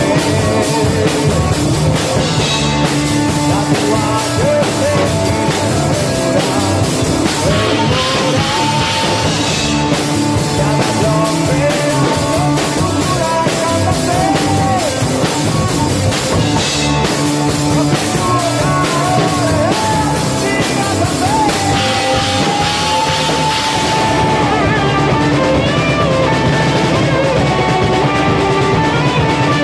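Rock song with a drum kit played hard, drums and crash and ride cymbals over the band's guitar and bass, with a melody line that slides in pitch. The cymbal wash drops away for the last few seconds while the drums carry on.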